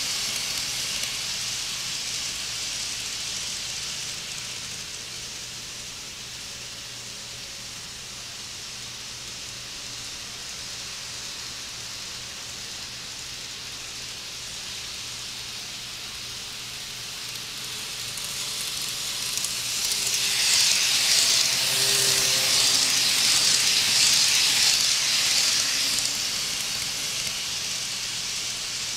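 KATO E531 N-scale model train running round its track: a high hiss of wheels and motor that fades as it moves away, stays low for a while, then grows loud again from about two-thirds of the way in with a faint whine before easing off near the end. The motor is pretty loud.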